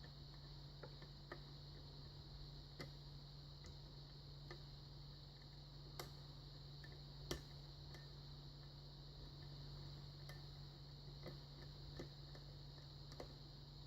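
Faint, irregular clicks of a lock pick working the pin stack of an American Lock Series 40 padlock during single-pin picking, with two louder clicks about six and seven seconds in. A steady low hum sits underneath.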